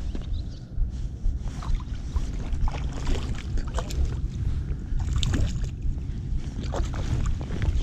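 Wind rumbling on the microphone, with water lapping and small irregular splashes and knocks.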